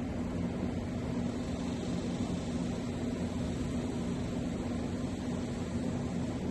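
Steady low hum over an even hiss, with no change in level.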